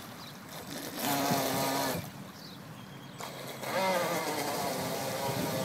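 Electric motor and propeller of a Hobbyking Princess RC speedboat whining in bursts as the throttle is opened and eased. It surges about a second in, drops off at two seconds, and comes back near four seconds with a brief fall in pitch as the boat turns.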